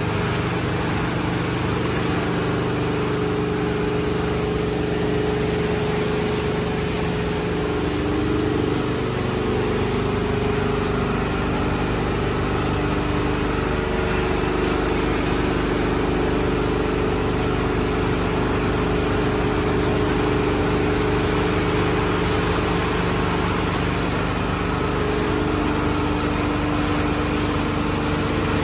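MacNeil/PECO mini-tunnel car wash equipment running: rotating wraparound brushes scrubbing a vehicle under water spray, over a steady low hum from the wash's motors and pumps.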